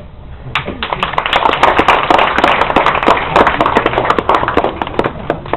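Audience applauding. The clapping starts about half a second in, is dense and full for a few seconds, then thins out near the end.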